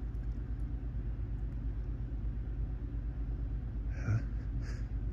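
A steady low hum, then about four seconds in a short, sharp voiced gasp with a breathier one just after: the 'heh' in-breaths of a tickle building toward a sneeze.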